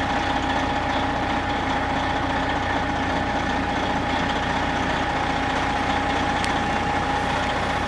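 Large truck engine idling steadily, a constant low rumble with a steady hum over it.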